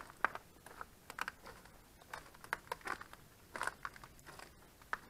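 Footsteps crunching on dry leaf litter and twigs, an uneven run of short crackles.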